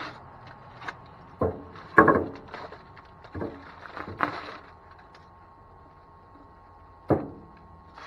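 Handling noise from a foil-wrapped PVC pipe and a thin wooden strip: a series of sharp knocks with rustling between them, the loudest knock about two seconds in and a last one near the end.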